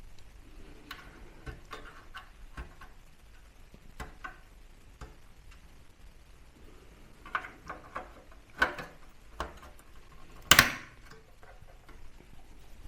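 Light clicks and ticks of small desktop-PC parts being handled and fitted during reassembly, with a few louder knocks in the second half, the loudest a sharp knock near the end.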